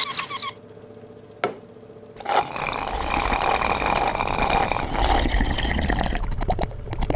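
A sharp click, then from about two seconds in a loud, long slurp through a drinking straw from a milkshake, lasting over four seconds.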